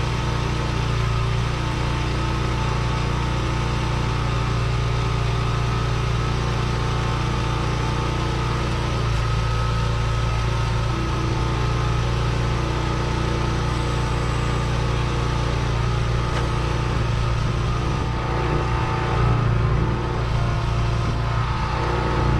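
Portable bandsaw sawmill's small gas engine running steadily at an even speed.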